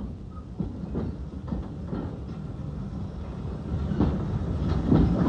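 Narrow-gauge steam tank locomotive, a former Tralee & Dingle 2-6-0T, running with a train of wagons: low rumble and clatter of wheels on the rails, growing louder near the end as it draws closer.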